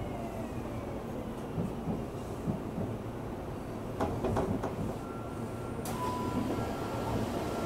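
Onboard running sound of a Tokyu 3000 series electric train: a steady rumble of wheels on rail, with a falling motor whine fading out in the first second. A cluster of clicks comes about four seconds in, and a steady high tone starts about six seconds in.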